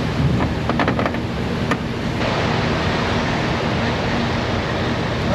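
Steady rushing, wind-like noise over a low hum, with a few light clicks in the first two seconds. The rush grows brighter about two seconds in.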